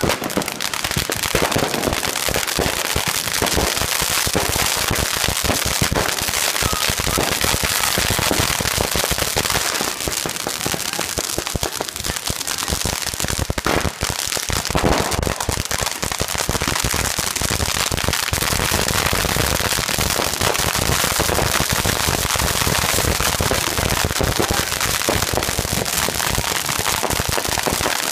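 Ground-level consumer fireworks, sparking fountains and firecrackers, crackling and popping continuously with many small pops a second.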